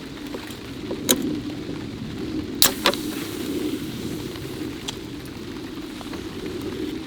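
Heavy rain falling steadily, with a sharp knock about a second in and two more close together midway.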